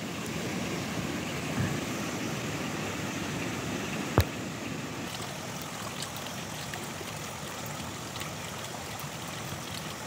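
Steady rushing background noise, like flowing water or wind, with a single sharp click a little after four seconds in.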